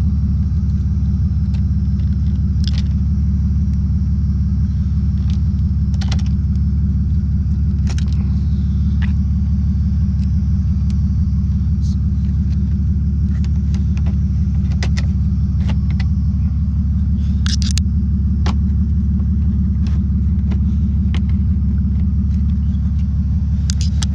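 Car engine running steadily, a constant low drone, with scattered light clicks and knocks. It is running smoothly now that the misfire has been repaired.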